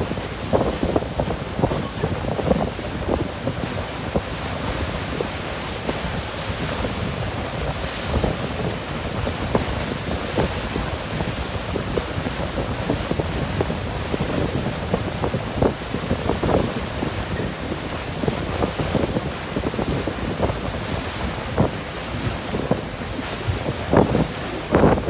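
Wind buffeting the microphone in uneven gusts over the steady rush of the sea, heard from a moving ferry.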